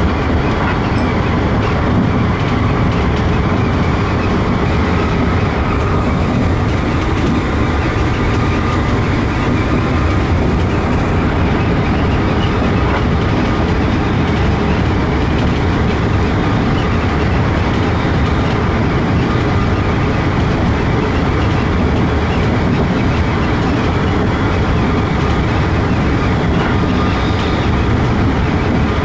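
Keikyu New 1000 series electric train running steadily at speed, heard from inside the driver's cab: the even rumble of wheels on rail, with some clickety-clack.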